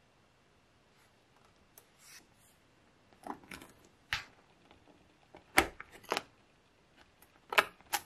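Small magnetic balls clicking as they snap together and are pressed into shape between two plastic cards: faint ticks at first, then a run of sharp, irregular clicks in the second half.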